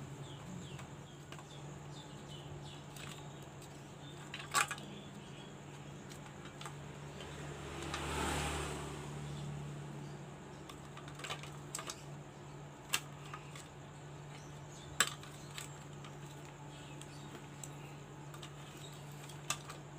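Scattered sharp clicks and knocks of plastic parts as a Miyako hand mixer's gear housing is worked apart by hand, with a brief scraping rush about eight seconds in, over a steady low hum.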